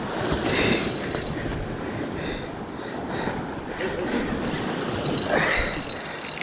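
Sea swell washing and surging against the rocks, with two louder surges, about a second in and near the end. Wind buffets the microphone.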